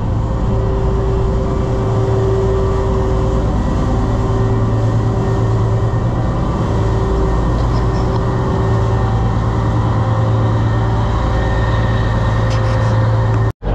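A large party fishing boat's engines running steadily under way, a constant low hum over a steady rush of wind and water along the hull. It breaks off for an instant near the end.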